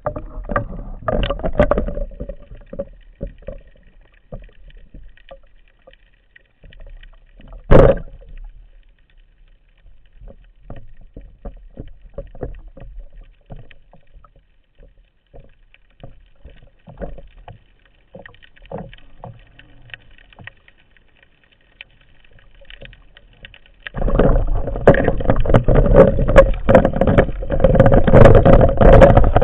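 Underwater sound: faint scattered clicks and knocks, then a single sharp, loud crack about eight seconds in, the shot of an old OMER T20 106 Pro band speargun. Near the end comes a loud, continuous churning water noise with many knocks.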